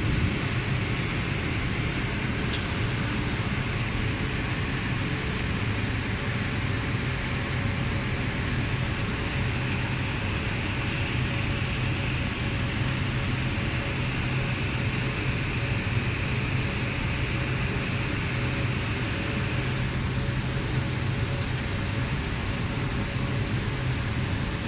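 Steady hum and whir of cooling fans in a telecom equipment room, with a constant low drone and a faint higher whine.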